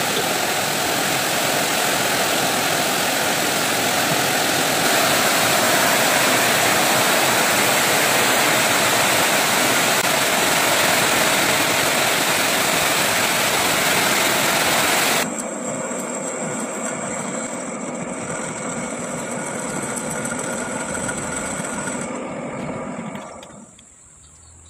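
Metal lathe turning down weld build-up on a crane clutch shaft with a carbide insert tool: a loud steady rushing noise of the machining. About fifteen seconds in it drops suddenly, leaving a quieter running whine with steady tones, which fades out near the end.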